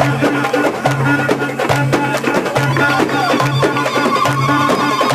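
Traditional folk wedding music: fast drum and clicking percussion over a repeating low bass figure, with a held melodic line coming in about halfway through.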